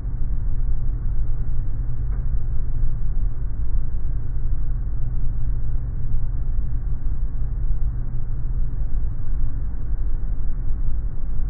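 Steady deep rumble of an airliner on final approach with its main landing gear lowered: airflow and engine noise heard from on board, heaviest in the bass.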